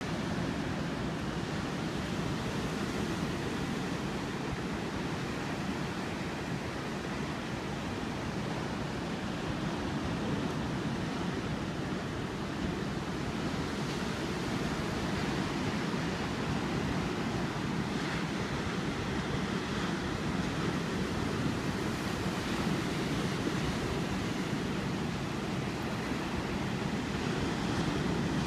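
Ocean surf, a steady wash of waves breaking and rolling in toward a rocky boulder shore, with no single break standing out.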